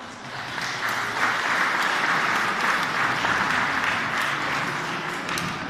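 Audience applauding: the clapping swells over the first second, holds, and fades away near the end.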